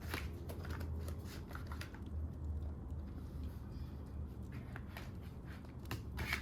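Irregular soft clicks and taps of a hotel key card and small desk items being handled while the card is prepared, thinning out in the middle, over a steady low hum.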